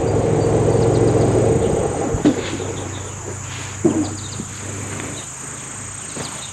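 Kubota L3901 tractor's diesel engine running, then dropping away over the first two seconds or so. A steady high drone of crickets continues throughout, with two dull knocks a couple of seconds in.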